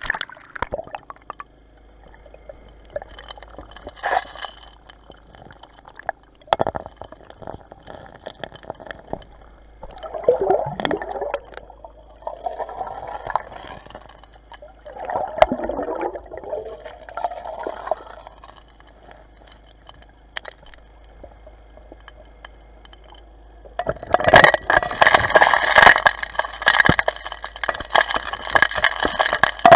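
Underwater sounds picked up by a camera submerged in a murky creek: gurgling water with scrapes and knocks against the housing. From about 24 s in, a much louder, dense, rushing noise sets in and carries on.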